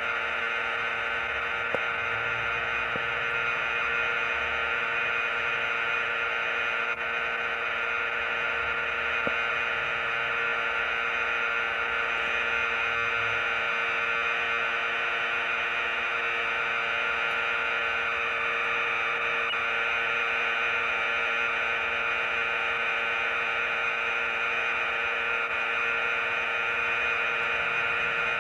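Computer-data cassette tape playing back a steady, unchanging tone with hiss, several fixed pitches sounding together.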